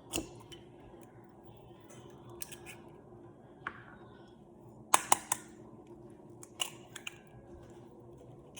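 Eggs being cracked: a series of sharp clicks and taps of shell, with the loudest, a quick cluster of three, about five seconds in.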